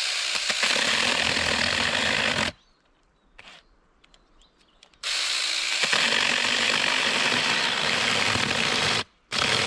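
AOSTOK 6-inch cordless mini chainsaw (21 V battery) running and cutting into a branch in three runs: it stops about two and a half seconds in, starts again about five seconds in, and breaks off briefly near the end. The saw is struggling in the cut, which the user puts down to a chain he may not have tightened.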